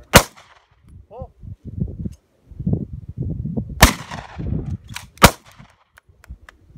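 Three handgun shots: one right at the start, then two more about three and a half and five seconds in, the last two about a second and a half apart.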